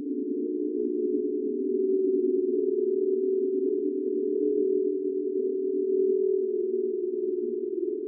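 Eerie ghost sound effect: a low droning hum of several close tones that waver slightly, swelling a little about two seconds in.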